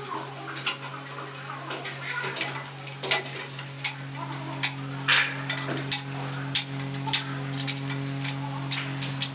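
Scattered sharp clicks and clinks of a hand tool against a glazed ceramic wall tile, irregular and a second or so apart, over a steady low hum.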